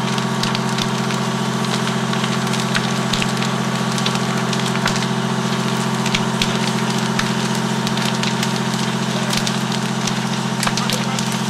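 Wooden garage burning fully involved, its fire crackling and popping with many sharp snaps. Underneath runs a steady, unchanging low drone of an idling engine.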